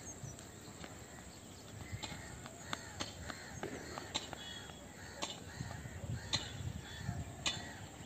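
Faint open-air background with birds calling now and then: short arched calls and sharp, clicky notes scattered through.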